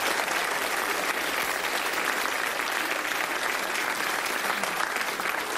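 Studio audience applauding, a steady spread of many hands clapping.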